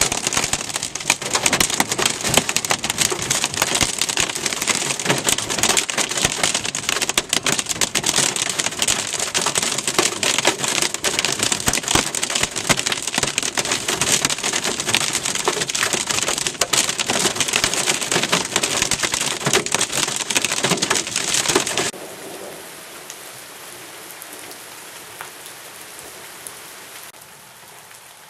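Heavy rain pelting a car's windshield and roof, heard from inside the car as a dense, loud patter. About three-quarters of the way through it cuts to a softer, steady rain hiss.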